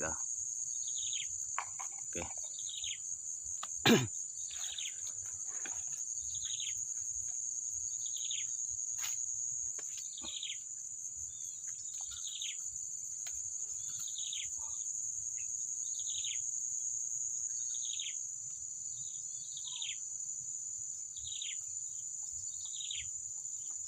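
Steady high-pitched insect drone with a bird repeating a short falling call about once a second. A single sharp knock about four seconds in.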